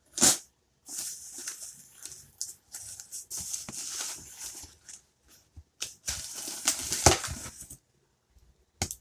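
Shipping packaging being opened by hand: a sharp snap at the start, then two spells of rustling and crinkling, about a second in and again around six seconds in.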